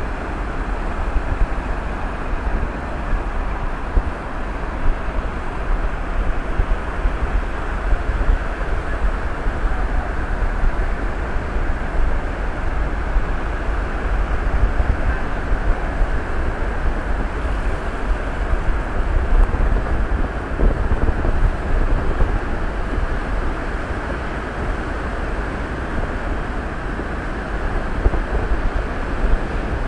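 Wind buffeting the microphone with a steady, uneven rumble, over the continuous wash of small waves breaking on a sandy beach.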